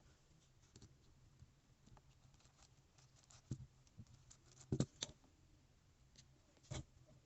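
Small plastic clicks and taps of Lego Technic pieces being handled and pressed together, scattered and light, with a few louder snaps, the loudest about halfway through.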